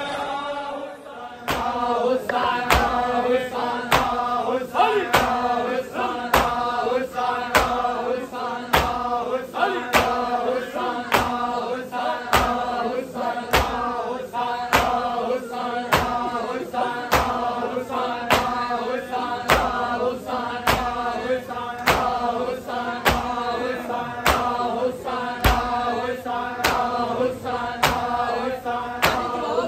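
A group of men chanting a noha, a Shia mourning lament, in unison. From about a second and a half in, steady slaps about twice a second keep time: the mourners' rhythmic chest-beating (matam).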